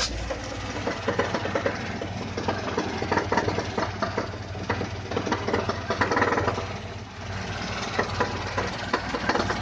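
VAZ-21011's four-cylinder engine running with a rapid knocking of unclear origin, which the owners feel comes from somewhere around the oil pan, from either the engine or the transmission.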